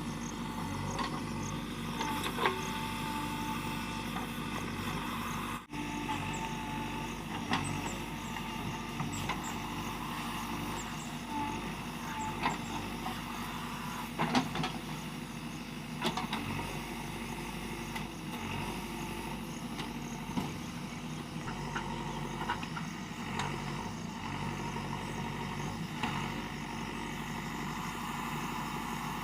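JCB backhoe loader's diesel engine running steadily under work, with occasional sharp clanks and knocks from the machine's working parts.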